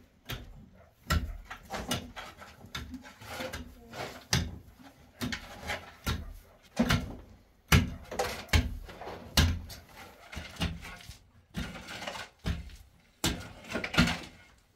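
Hand tools working wet cement: a string of irregular scrapes and knocks, one or two a second.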